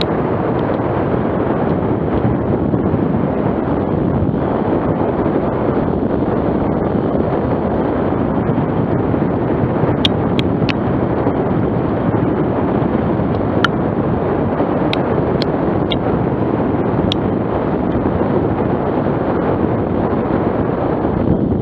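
Steady wind buffeting the microphone at the seashore, a loud, even rushing, with a few small clicks in the middle.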